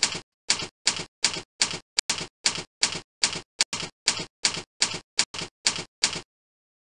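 Slide-animation sound effect: a run of short, even clicks, about three a second, one for each word of a heading appearing on screen, stopping about six seconds in.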